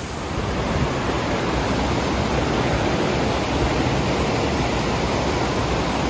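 Steady rush of water from twin waterfalls and the rocky creek below them, a constant even roar.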